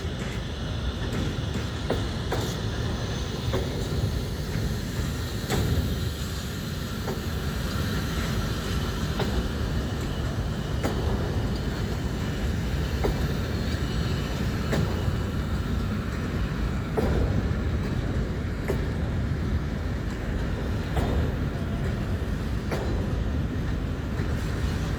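PIMK Rail freight train rolling slowly out of the station, a steady low rumble with wheels clicking over rail joints every second or two.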